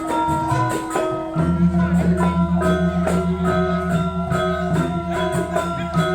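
Balinese gamelan ensemble playing: rapid interlocking notes on bronze metallophones, with a deep gong note entering about a second and a half in and ringing on, pulsing.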